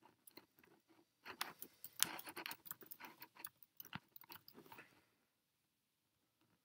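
Faint typing on a MacBook keyboard: a quick, uneven run of key clicks that thickens after about a second and stops about five seconds in.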